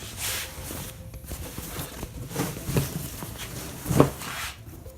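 Handling noises: rustling and a few light clicks, then one sharp knock about four seconds in.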